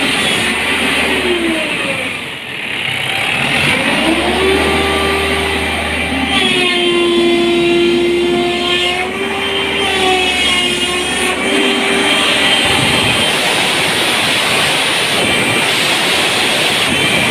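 Crane's engine running loudly, with a whine that glides down and back up in pitch, holds steady, then wavers and fades out about three-quarters of the way through. This is the noise being checked as abnormal.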